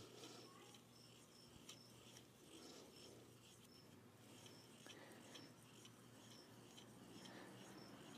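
Near silence, with faint high-pitched chirps repeating about twice a second.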